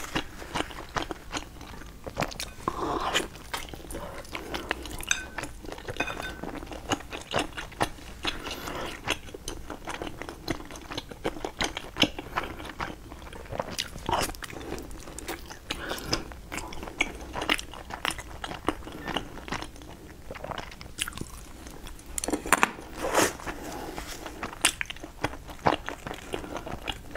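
Close-miked eating: a person biting and chewing food, a run of many irregular sharp clicks and smacks, with louder bites near the end.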